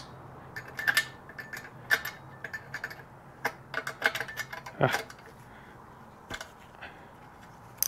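Metal hand tools clinking against nuts and studs: a few separate sharp clicks and clanks of a wrench being handled, with short pauses between them.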